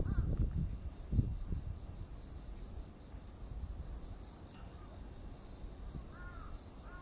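Crows cawing, the clearest two calls near the end, over faint high-pitched chirps that repeat about once a second. A low rumble fills the first second or so.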